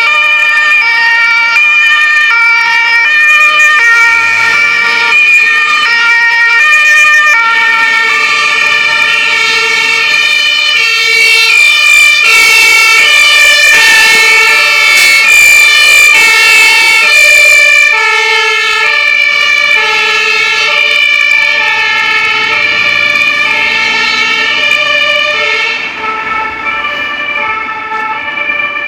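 Two-tone German emergency sirens (Martinshorn) on several passing fire engines, each sounding alternating high and low tones, the sets overlapping out of step. They are loudest midway as a truck passes close, then drop in level near the end as the convoy moves off.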